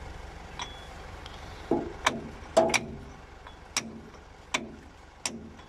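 A club hammer strikes the steel of a David Brown 1490 tractor's PTO clutch linkage, making about six sharp metallic clanks at uneven intervals, each with a brief ring. The blows are aimed at freeing a PTO clutch cable thought to be seized.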